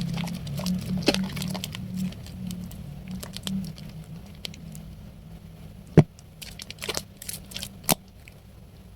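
Wet bar soap being worked into lather by hand: squishing and crackling of foam with a scatter of small clicks, growing quieter as it goes, and sharp clicks about a second in, six seconds in (the loudest) and near eight seconds.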